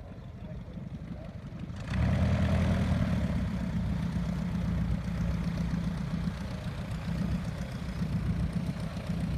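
A light aircraft's piston engine running steadily close by, coming in abruptly and loudly about two seconds in.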